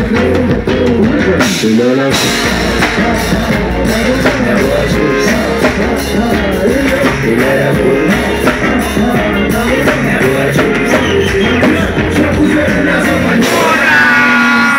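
Loud live music over a PA: a band with drum kit and bass playing under vocals on microphones.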